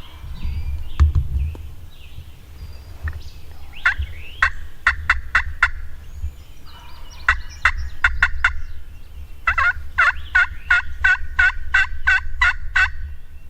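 Turkey yelping: three runs of short, evenly spaced yelps, the last and longest about a dozen notes. A single knock sounds about a second in, over a low rumble.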